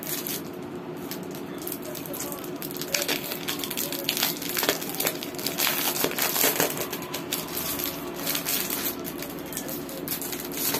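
Clear plastic cellophane wrapping crinkling and crackling as a boxed paper doll set is handled in its sleeve. The crackles are busiest around the middle.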